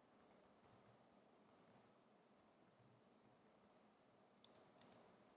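Faint computer keyboard typing: irregular light key clicks, some in quick runs, with a short cluster about four and a half seconds in.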